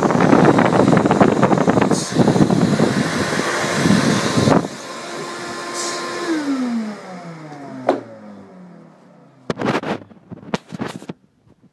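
The electric blower motor of a model car wash runs loudly, is switched off about four and a half seconds in, and spins down with a falling whine. A few knocks follow near the end as the camera is handled.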